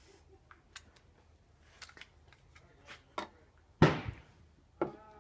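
Pistol being unloaded by hand: a series of metallic clicks and clacks from the magazine and slide, with one much louder clack about four seconds in and another knock a second later.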